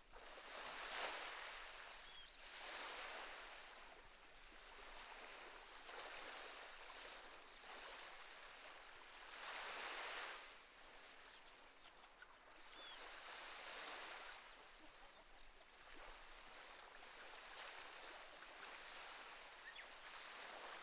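Faint small waves washing onto a rocky shore, the surf swelling and fading every three to four seconds.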